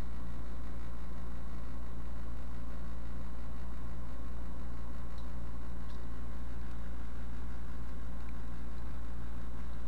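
Steady low hum with an even hiss over it, unchanging in level, and a couple of faint small clicks about halfway through.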